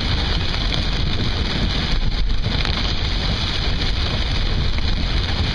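Steady noise of a car driving through heavy rain on flooded roads, heard from inside the car: tyres on the wet road, rain on the body and a constant low rumble.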